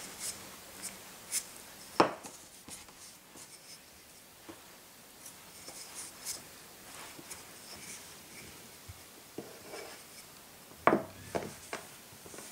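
Kitchen preparation sounds on a wooden work surface: light rubbing with scattered short knocks. One sharp knock comes about two seconds in, and a small cluster of knocks comes near the end.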